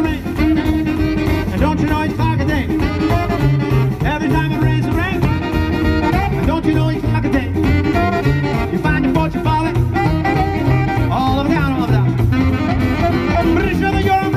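Live swing band playing an instrumental passage, with saxophones carrying the melody over bass and drums.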